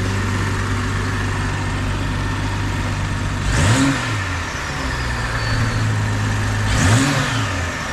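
BMW M340i's turbocharged B58 inline-six on its stock exhaust idling steadily, blipped twice with quick revs that rise and fall, about three and a half and seven seconds in.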